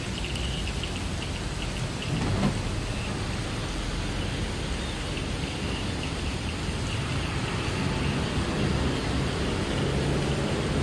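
Steady rain falling, with the low drone of a distant D301 diesel locomotive underneath it. The drone grows a little louder toward the end as the train approaches.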